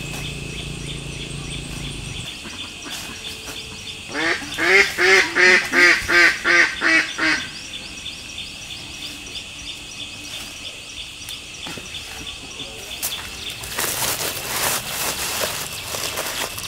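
Duck quacking: a quick run of about ten loud, even quacks lasting some three seconds, starting about four seconds in. Near the end, dry leaves crackle underfoot, over a steady high insect drone.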